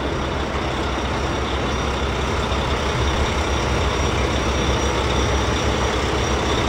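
Truck engine running steadily, a low rumble that holds even throughout.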